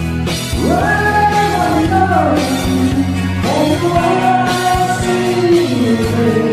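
Rock song: a voice sings two long phrases of held notes over a steady drum beat and sustained low instruments.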